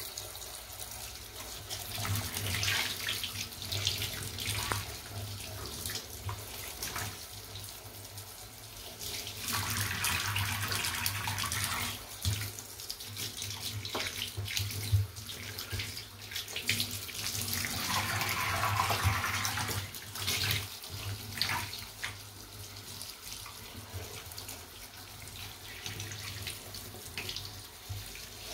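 Water pouring from a handheld shower head onto a sneaker held under the stream, a steady splashing rush that swells louder several times as the shoe is turned and rubbed under the water.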